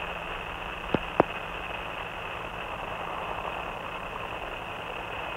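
Steady hiss and static of an open air-to-ground radio channel between transmissions, with two short clicks about a second in.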